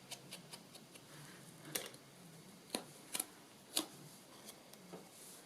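Faint, irregular light taps and clicks of small craft items being handled on a work surface, with a few sharper taps in the middle.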